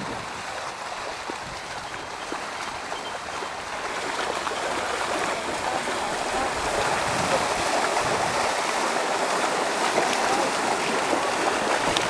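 Floodwater rushing, a steady noise that grows louder about four seconds in.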